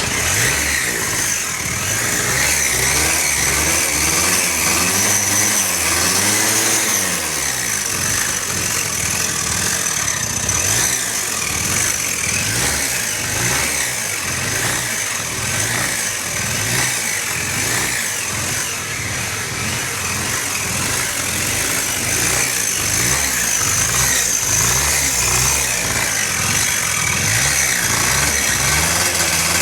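Engine running, its speed rising and falling as it is revved, with a steady high whine over it. The engine is running with a filter fitted and making a noise that is taken for strange.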